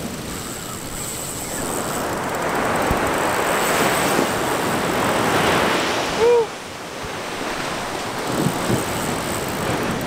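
Surf washing on the beach, the rush of a wave building over several seconds and then easing, with wind buffeting the microphone. About six seconds in, a brief high squeak with a rise and fall in pitch cuts through.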